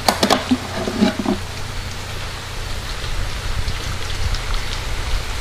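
Steady rain falling, an even hiss with scattered drop ticks. In the first second or so a quick run of clinks with short metallic rings comes as a metal tool is picked up from the wooden bench. A low rumble builds through the second half.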